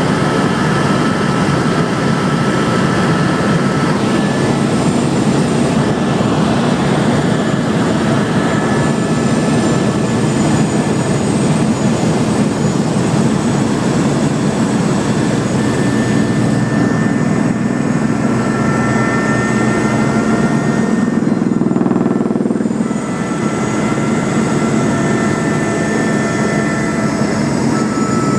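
Steady engine drone heard inside the cabin of a small aircraft in flight, with faint high whining tones over it. The noise dips briefly about 22 seconds in, then carries on.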